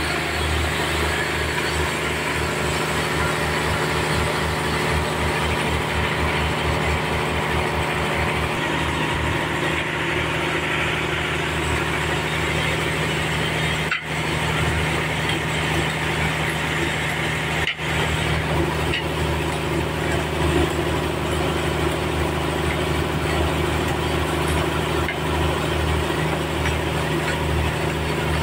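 Engine-driven sawmill running steadily while its blade saws through a trembesi (rain tree) log, a continuous engine hum under a dense rushing cutting noise, with two very brief drops in level partway through.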